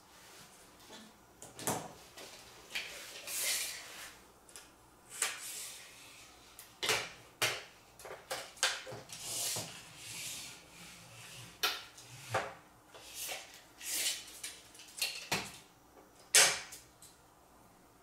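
Portable air conditioner's plastic window slider panel being handled and marked out: irregular scrapes, rubs and light knocks of plastic as a straightedge and marker are worked along it, with a sharper knock near the end.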